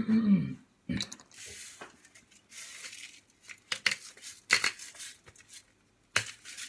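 A hand-twisted salt grinder crunching salt in a series of short, gritty bursts with sharp clicks, after a brief vocal sound at the very start.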